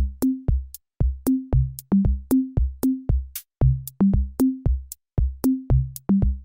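Electronic background music: a drum-machine beat of short deep kick-drum hits and clicks, about four a second, with short synth bass notes.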